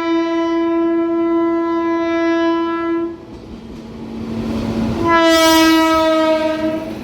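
Indian Railways train horn: one long blast that stops about three seconds in, then a rush of passing-train noise swells and a second long blast starts about five seconds in, dropping slightly in pitch as it goes.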